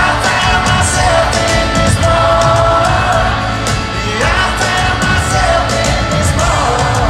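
Live country music heard over an arena PA from the audience: a male singer with acoustic guitar and a full band, the crowd yelling and whooping along.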